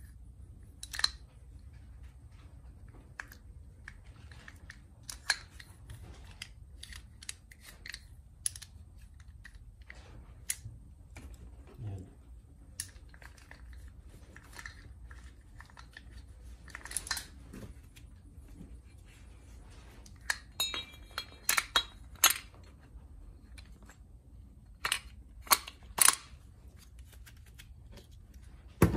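Scattered small metallic clicks, taps and clinks of starter-motor parts being handled and fitted together during reassembly, with a quick run of louder clinks that ring briefly about twenty seconds in.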